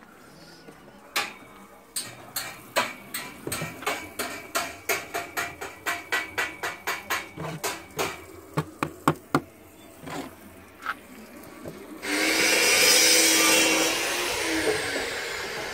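Masonry work with hand and power tools: a run of sharp taps, two or three a second, for about ten seconds, then a power tool starts about twelve seconds in and runs loudly, a faint high whine in it slowly falling near the end.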